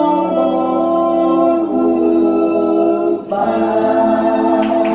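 Small vocal group singing long held notes in close harmony, with acoustic guitars; the chord changes partway through, and after a brief break a new sustained chord begins about three seconds in.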